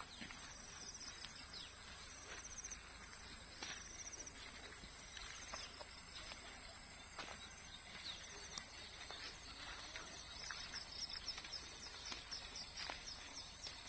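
Faint farm insect chorus: a steady high-pitched drone with short pulsed trills repeating every second or two. Quick high bird chirps come in over it during the last few seconds.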